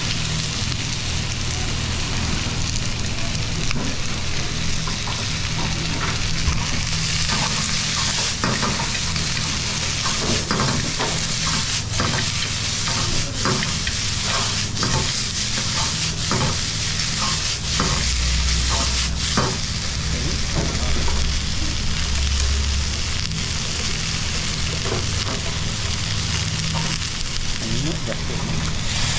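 Vegetables sizzling as they are stir-fried in a wok over a gas flame, with wooden chopsticks stirring them and clicking against the wok, the clicks coming thickest in the middle stretch. A steady low hum runs underneath.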